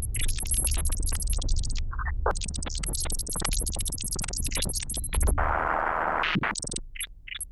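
Glitchy electronic music: a dense stream of digital clicks and crackles over a steady low bass. A hiss of static comes in about five and a half seconds in, and the sound thins out near the end.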